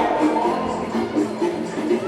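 Live dance music from a band playing, with held melodic notes over a steady accompaniment.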